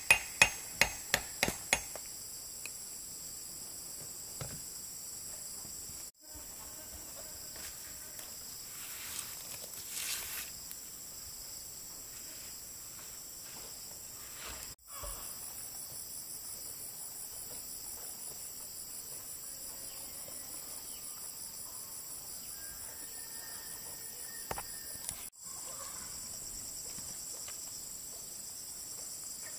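About half a dozen hammer strikes in quick succession in the first two seconds, then a steady high-pitched insect chorus, such as crickets, with a few faint knocks and three brief dropouts.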